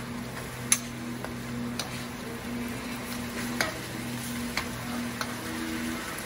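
Honey-citrus pan sauce sizzling and bubbling as it reduces to a glaze in a metal skillet on a gas burner. Metal tongs click against the pan about five times, loudest just under a second in.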